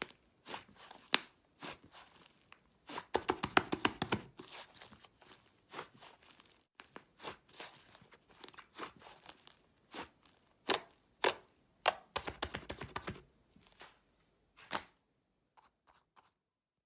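Slime being squeezed, stretched and pressed by hand, giving irregular crunchy crackles and sticky pops, with two denser runs of crackling; it stops about fifteen seconds in, leaving only a few faint clicks.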